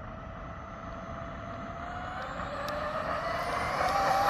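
Stock Traxxas XRT RC monster truck on a speed run, its brushless electric motor and hardened 23/46 speed gears whining as it accelerates. The whine rises slowly in pitch and grows steadily louder as the truck closes in.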